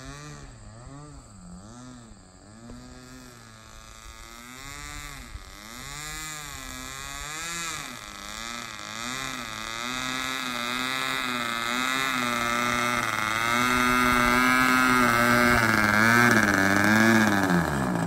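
Radio-control model airplane engine running on the ground, its pitch swinging up and down about once a second as the throttle is worked, then holding steadier, and growing steadily louder as the plane taxis toward the microphone.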